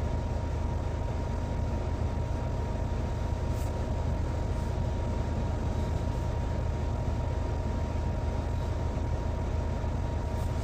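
Steady low hum inside a car cabin, with a faint steady tone above it.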